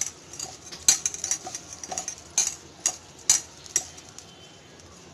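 Crumbly fresh chhena being mixed with sugar in a steel bowl: irregular sharp metallic clinks and light scrapes against the bowl, about five strong ones, stopping about four seconds in.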